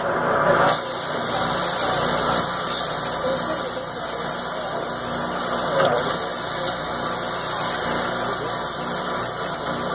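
A motor running steadily with an even hum, with a single sharp knock about six seconds in.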